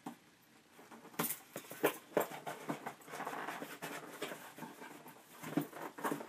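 Cardboard shipping box being opened by hand: rustling and scraping of the flaps with a string of sharp clicks and crackles, starting about a second in.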